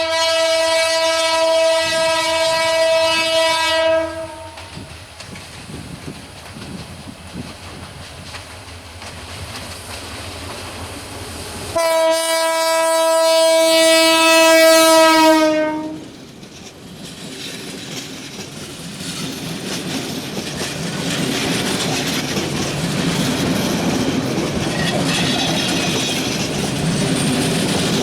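Meter-gauge diesel train's horn sounding a long blast of about four seconds, a low rumble of the approaching train, then a second long horn blast about twelve seconds in. After that, the train passes close by with the steady clatter of wheels over the rail joints, growing louder and then holding.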